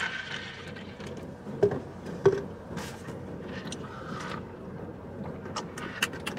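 Orange juice pouring into a foam cup of ice, trailing off about a second in. Then a couple of short knocks and scattered small clicks from the cup as he drinks from it.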